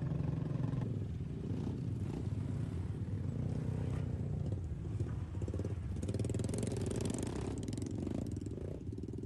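Motorcycle engine running steadily, rising somewhat louder about six seconds in.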